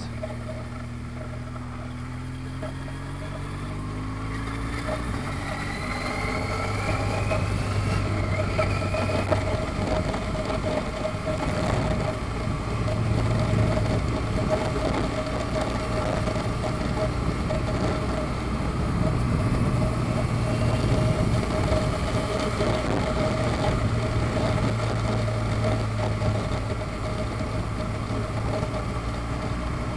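Vehicle engine heard on board while driving: it climbs in pitch over the first few seconds as it picks up speed, then runs steadily under way with road and wind noise that swells and eases.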